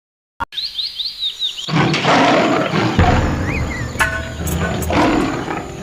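3Q Qoo!-XL mobile phone ringtone of wild-animal sounds, starting with a click and a second of high bird-like chirps, then a loud rumbling animal roar-like sound with nature noise from about two seconds in.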